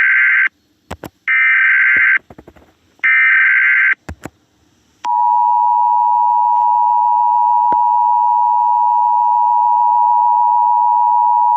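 Emergency Alert System broadcast tones. First come three short bursts of the buzzy digital SAME header, about a second apart, with clicks between them. About five seconds in, the steady two-tone EAS attention signal starts and holds.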